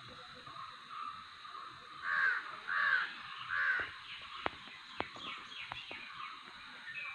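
A bird gives three loud calls in quick succession about two seconds in, followed by a few scattered sharp clicks.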